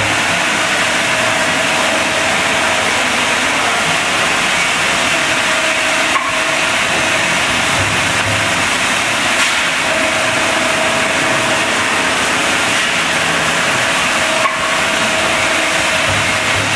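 Vertical form-fill-seal powder packing machine running: a loud, even hiss with a faint whine that comes and goes, and a short click twice, about six seconds in and again about eight seconds later.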